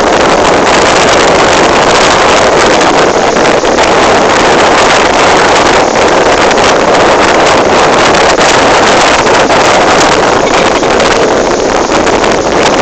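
Strong wind blowing hard across a phone's microphone: a loud, steady rush of noise with crackling.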